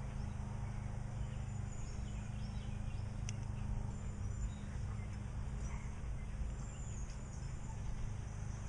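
Outdoor ambience: faint, scattered bird chirps over a steady low hum.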